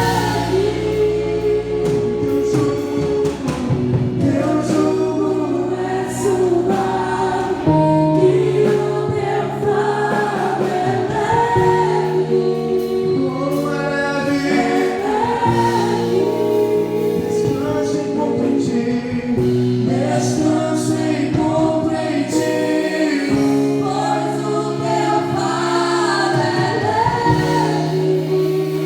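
Gospel worship song: several voices singing over long held chords.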